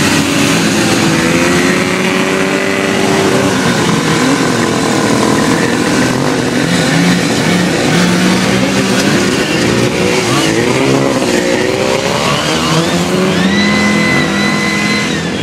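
Vintage 340-class two-stroke racing snowmobile engines running hard at a heat start, their pitch rising and falling several times as the sleds accelerate and lift off. A high steady whine joins near the end.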